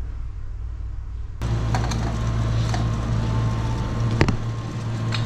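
Steady low machine hum and background noise of a drink bar with an ice maker and drink dispensers. It starts abruptly about a second and a half in, and a single sharp click comes about four seconds in.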